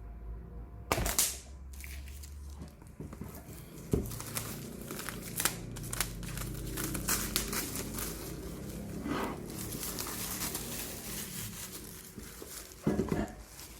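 Packaging being unwrapped: continuous crinkling and tearing of wrapping, with a sharp rip about a second in, a knock about four seconds in, and a louder burst of handling near the end.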